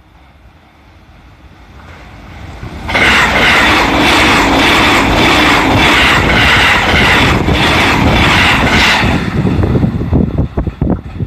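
A JR East E657 series limited express electric train approaching and passing at speed. It grows louder over the first few seconds, then a loud, steady rush of wheels and body with a regular clatter of wheels on the rails lasts about six seconds. It breaks into gusty buffeting from the train's wake as the last cars go by.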